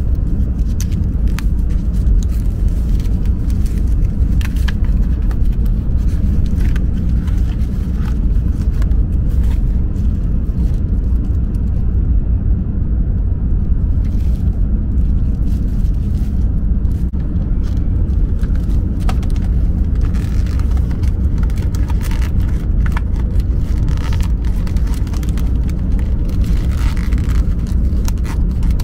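Steady low rumble inside the cabin of a moving Shinkansen bullet train, with scattered crinkles and rustles of plastic wrap and a bamboo-sheath wrapper being handled and opened.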